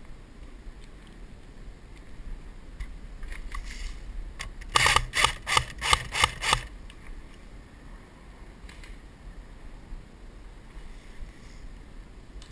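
AK-style airsoft electric rifle firing a quick string of about nine shots in two seconds, about five seconds in.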